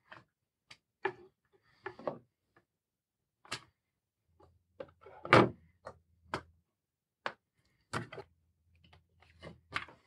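Scattered small clicks, taps and knocks of hands handling a cable and a folding multitool on a plywood board, with one louder knock about five and a half seconds in.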